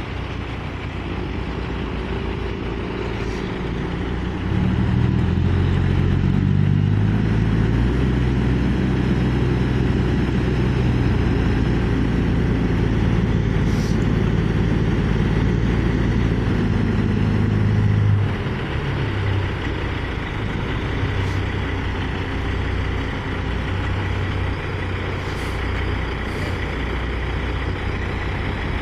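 Heavy log truck's diesel engine running as the truck pulls slowly along a gravel road. It grows louder about four seconds in and eases back after about eighteen seconds.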